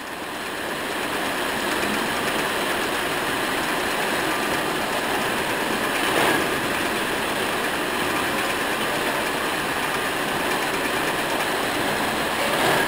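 Steady noise of factory production machinery running, an even hiss-and-hum with no clear rhythm. It swells in over the first second or two and grows briefly louder about halfway through and again near the end.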